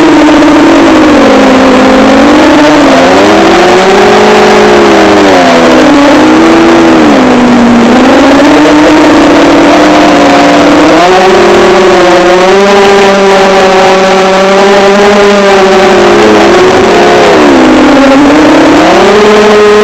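FPV quadcopter's brushless motors and propellers whining loudly, picked up close by an onboard action camera. The pitch rises and falls every few seconds as the throttle changes, and a steadier lower hum runs under it.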